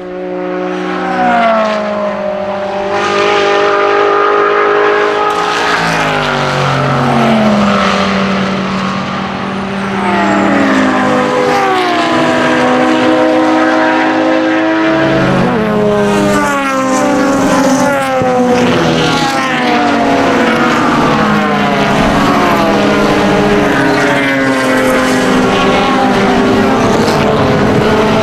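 Several racing cars' engines at full song through a corner, overlapping notes that repeatedly fall and rise in pitch as cars pass and shift. First GT cars such as a Porsche 911 GT3 Cup, then a dense pack of production sports cars.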